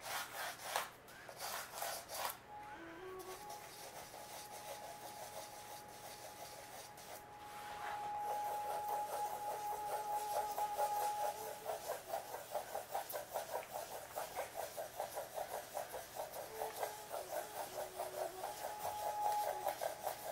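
Pencil scratching on drawing paper: a few separate strokes at first, then from about eight seconds in a quick, rhythmic scribble of looping oval strokes.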